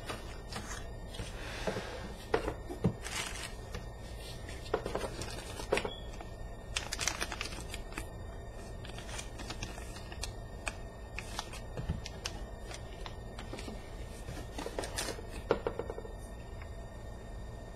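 Scattered rustles, crinkles and light taps of camera packaging being handled and opened, coming in short clusters with pauses between.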